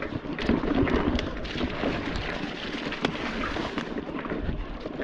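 Electric mountain bike riding over rocks and roots: tyres rolling and crunching on the trail, with frequent knocks and rattles from the bike. Wind rumbles on the microphone throughout.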